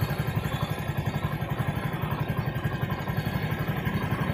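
TVS XL 100 moped's small single-cylinder four-stroke engine idling with a steady, even pulse.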